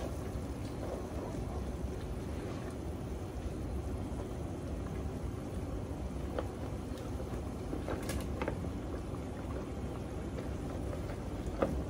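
Steady low rumble of a simmering pot on a gas stove, with a few light clicks and knocks as a spoon scrapes cubed potatoes and chilies off a tray into the pot.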